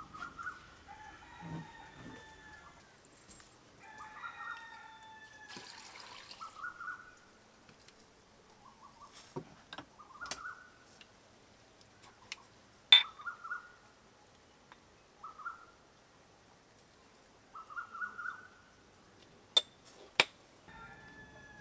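Chickens calling, clucking with a crow or two, amid short repeated bird calls. A few sharp clicks cut through, the loudest a little past the middle.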